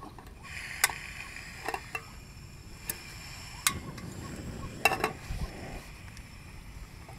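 A handful of sharp clicks and knocks, about six, spaced irregularly over a steady background hiss.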